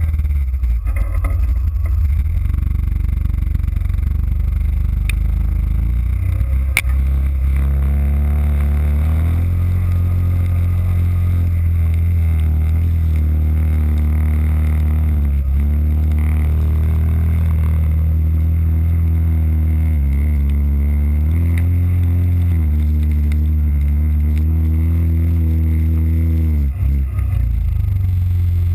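Yamaha Kodiak ATV's single-cylinder engine running under load along a muddy trail, heard close up from the front bumper as a loud low rumble, its pitch rising and falling with the throttle and dropping briefly several times. A couple of sharp ticks sound about five and seven seconds in.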